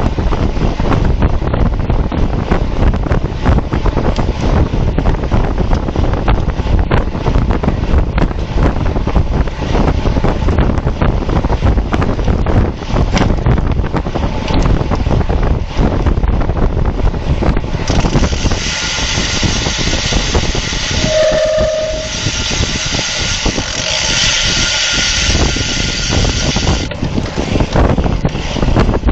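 Wind buffeting the microphone of a camera mounted on a road bike at race speed, a steady low rumble. For roughly the last third a higher hiss with a few faint tones joins in, then fades.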